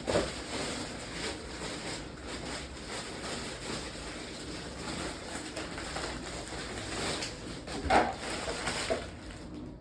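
Water being poured from a plastic bottle into a pot, glugging from the bottle's neck, with a louder clunk about eight seconds in.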